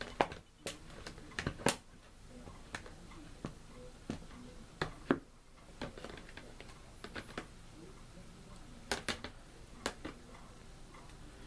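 Scattered sharp clicks and knocks of a box fan blade being handled and pushed onto the motor shaft, at irregular intervals.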